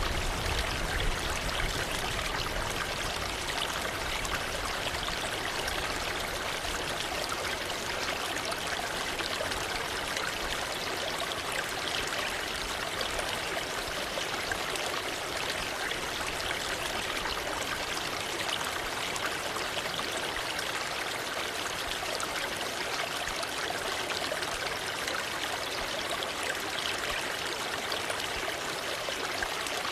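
Waterfall or fast stream rushing steadily, an even splashing hiss of falling water.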